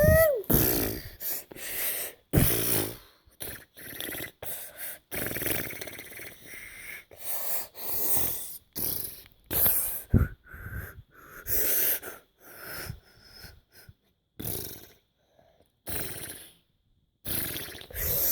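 A child making breathy mouth sound effects: a long run of short, noisy hissing and blowing bursts with brief pauses between them.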